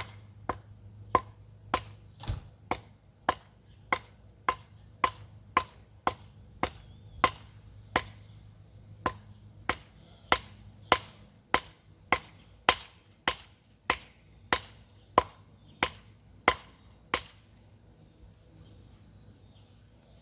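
A steady series of sharp knocks, roughly two a second, about two dozen strikes in all, stopping about three seconds before the end.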